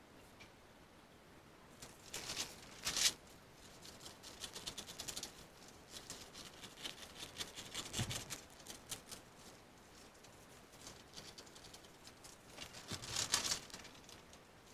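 Scissors snipping through stiff brown pattern paper, with the sheet crinkling and rustling as it is handled. The loudest rustles come about two to three seconds in and again near the end.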